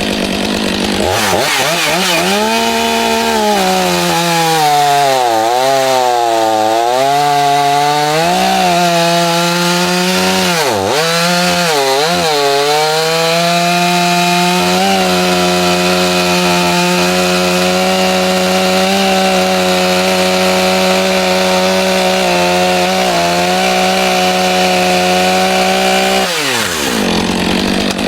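Chainsaw running at high revs during cutting: its pitch dips and recovers several times as it bogs under load, then holds steady before the throttle is released and it winds down near the end.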